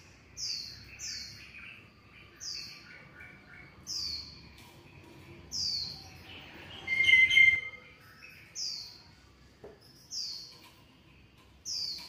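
Repeated high chirping calls of an animal: about eight short chirps, each falling in pitch, spaced irregularly a second or more apart. About seven seconds in comes a louder, noisier sound lasting about half a second.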